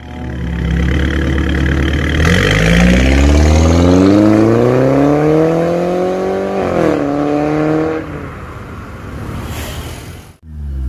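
Mercedes-Benz E250 W207 coupe, fitted with an aftermarket full-system valved exhaust, accelerating hard. The engine note rises steadily for several seconds, dips briefly at a gear change, climbs again, then falls back as the throttle is lifted.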